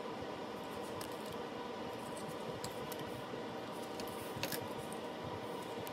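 Scattered small clicks and snips of a hand wire stripper working insulation off thin wires, the sharpest about four and a half seconds in, over a steady background hum.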